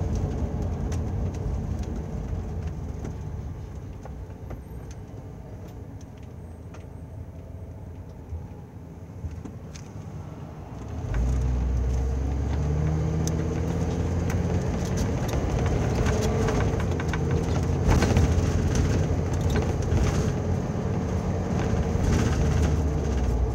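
Ford 450 Class C motorhome's Triton V10 engine and road noise heard from inside the cab. It is quieter at first. About halfway through, the engine note jumps up and climbs in pitch as the RV accelerates, then settles into a steady, louder drone of engine and tyres.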